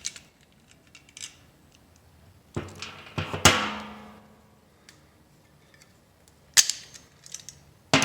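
Sharp metallic clanks from hand tools striking the rocker-arm assembly while the 10mm jam nut on the valve adjustment screw is worked loose. There are a few clanks about a third of the way in, with the loudest ringing on for about a second, and another sharp knock a couple of seconds before the end.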